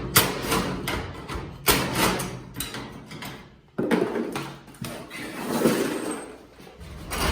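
Garage door hardware being worked loose: four loud knocks, each trailing off in a rattle.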